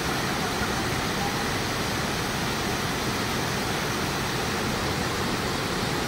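Steady rush of a cascading mountain stream tumbling over boulders.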